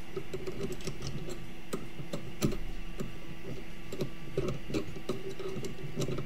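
Irregular light metallic clicks and taps as the collet nut on a 3018-Pro CNC router's spindle is tightened down on a 1/8-inch upcut bit, with one sharper knock about two and a half seconds in, over a faint steady hum.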